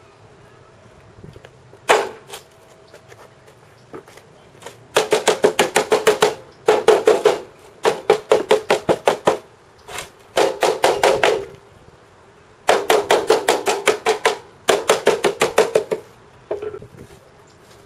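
Hammer blows beating bent aluminum sheet flat on a steel welding table: a single strike about two seconds in, then six quick runs of rapid blows, about seven or eight a second.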